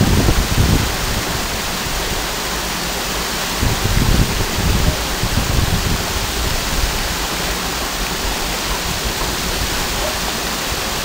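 Waterfall pouring, a steady dense rush of falling water, with low rumbling surges right at the start and again about four to six seconds in.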